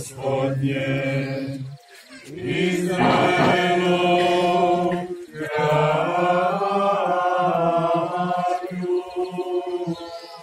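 Liturgical chant sung in long, steady-pitched phrases, with two short breaks, about two seconds in and about five seconds in.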